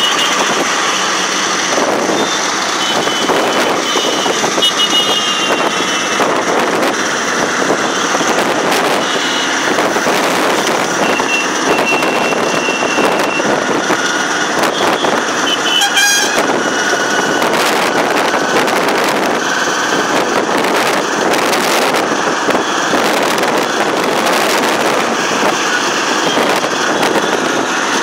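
Auto-rickshaw riding in traffic: its small engine running steadily under heavy wind and road noise, with vehicle horns tooting briefly a few times, one about two seconds in, another around halfway through.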